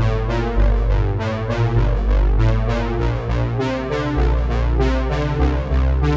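Background music: a synthesizer and keyboard instrumental with a deep bass line and a steady beat.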